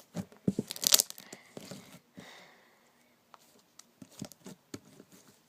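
Sticky slime squished and stretched by hand: a dense run of wet clicks and pops for the first two seconds, loudest about a second in, then scattered single pops.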